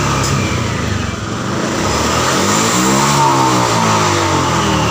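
Honda Vario FI scooter engine revved on the throttle: it runs at a lower speed, climbs about two seconds in, peaks around three seconds and drops back near the end. The rev shows the complaint being diagnosed: the engine stutters (brebet) at high rpm, as if short of fuel.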